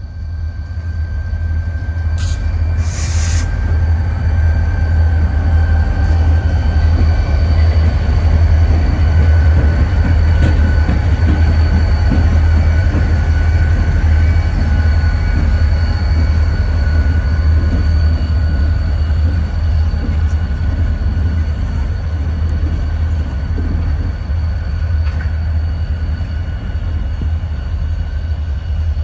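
Wheeling & Lake Erie six-axle diesel locomotives passing close by, their engines giving a heavy, steady low rumble that swells over the first few seconds as they come alongside. Steady high tones run above the rumble, and there is a short sharp noise about two seconds in.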